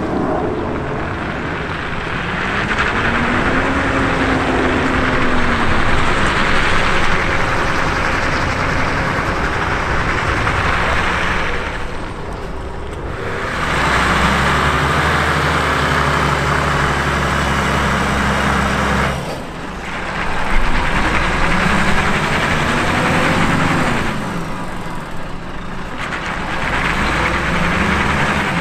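Heavy Volvo truck's diesel engine running under load as it hauls a long multi-axle trailer, its note rising and falling several times over a steady hiss. The sound changes abruptly a few times.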